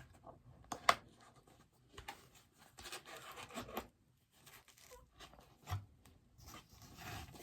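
Packaging being handled and torn open: scattered sharp clicks and a rasping tear lasting about a second near the middle.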